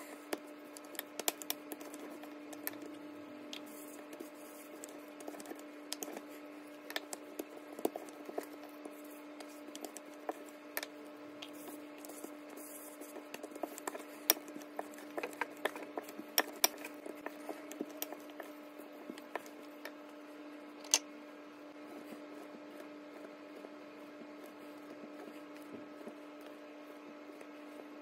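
Dumpling dough being shaped by hand and rolled out with a wooden rolling pin on a granite countertop: scattered light taps and clicks of the pin and hands on the stone, with a sharper knock about 21 seconds in, over a steady low hum.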